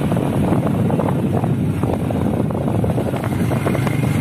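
Wind buffeting the microphone over the steady running of a motorcycle being ridden along a lane.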